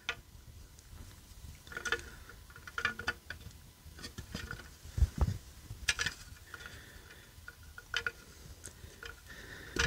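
Faint, irregular clicks and light taps of hands handling a small plastic LED ceiling light fixture and its wiring. A few sharper taps stand out among them.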